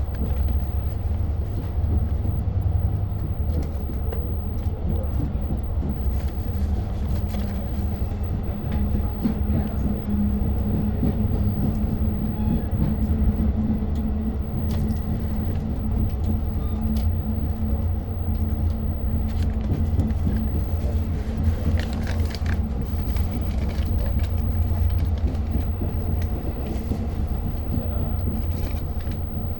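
Interior of a diesel-hauled Long Island Rail Road train running along the track: a steady low rumble of the wheels and running gear with a constant hum, and scattered clicks and rattles from the car.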